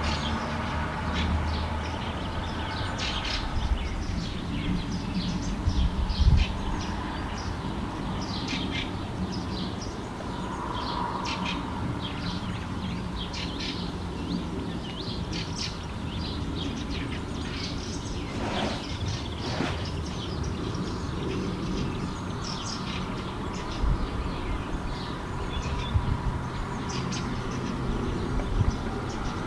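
Birds chirping in many short, scattered calls over a steady low rumble of background noise.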